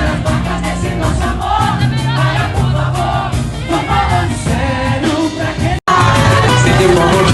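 Samba group playing and singing, several voices together over the band. About six seconds in the sound cuts out for an instant, then the music carries on.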